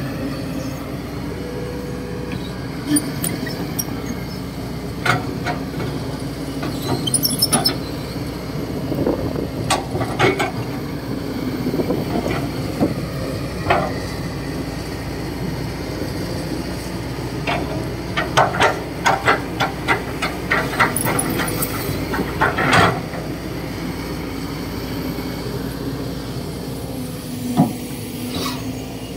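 Kobelco SK200-8 hydraulic excavator running steadily as it digs dirt with its bucket, with sharp metallic clanks and knocks scattered through and a quick run of them about two-thirds in.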